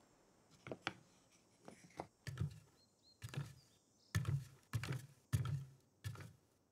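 Footsteps on a wooden staircase: a run of hollow thuds about two a second, soft at first and louder from about two seconds in.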